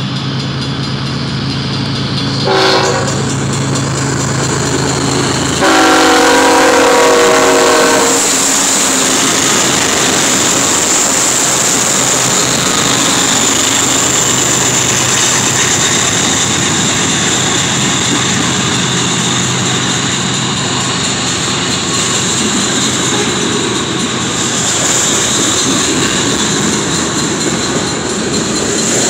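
Horn of a BNSF GE ES44C4 diesel locomotive sounding long blasts for a grade crossing, the last blast the loudest, ending about eight seconds in. The locomotives and a manifest freight train then roll past close by, with steady wheel-on-rail rumble and clatter.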